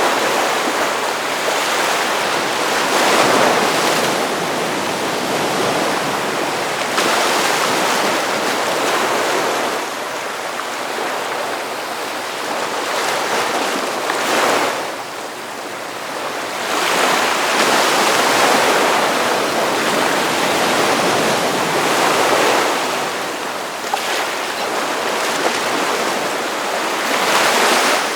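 Ocean surf: waves breaking and washing up the beach in a continuous hiss that swells and ebbs every few seconds.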